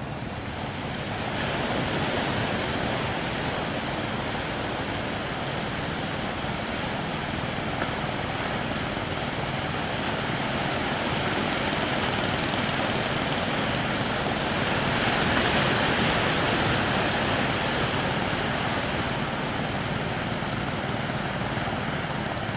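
Surf breaking at a river-mouth sandbar, a steady rushing wash that swells louder twice, shortly after the start and again past the middle.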